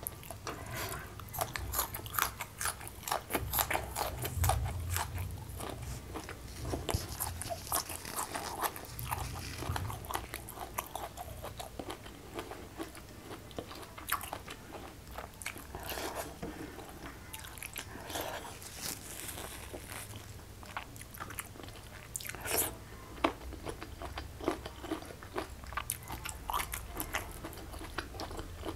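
Close-miked eating sounds: crisp crunching bites and wet chewing of food eaten by hand, in many short crackles, busiest in the first third.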